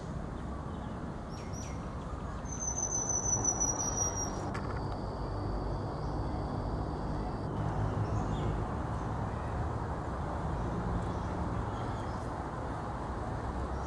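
A bird gives one high whistled call that falls slightly in pitch, lasting about two seconds from a little over two seconds in, followed by a fainter steady high note. Under it runs a steady low rumble of outdoor background noise.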